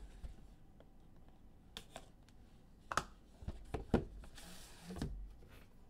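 Hands opening a cardboard trading-card box: a few light clicks and taps, then a short sliding rustle with a low thump about four and a half seconds in.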